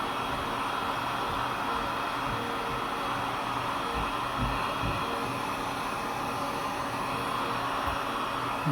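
Heat gun blowing steadily while it melts a solder-seal heat-shrink connector onto a wire joint, with a few soft knocks about halfway through.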